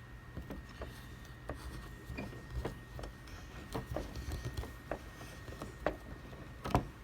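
Irregular light knocks, taps and rubbing from hands handling the stool's legs as they are pushed into holes filled with construction adhesive caulk. The loudest knock comes near the end.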